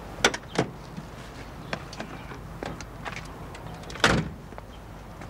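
Car door clicking open with two sharp latch clicks, a few light knocks as someone climbs out, then the door slammed shut with one loud bang about four seconds in.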